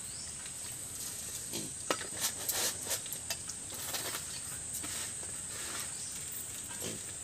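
Dry rice grains rattling and pattering in a small steel cup and on a bamboo winnowing tray as they are scooped by hand, with a few sharp clicks of metal and grain clustered about a second and a half to three and a half seconds in and again near the end. A steady high insect drone runs throughout.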